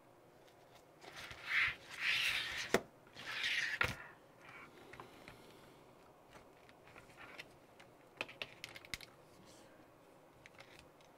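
Hands handling a plastic RC car chassis and its small parts: rustling and scraping with two sharp clicks, then a few scattered faint ticks.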